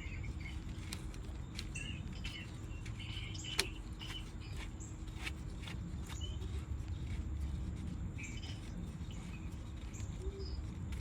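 Small birds chirping now and then over a steady low rumble, with a few light clicks and one sharper click about three and a half seconds in.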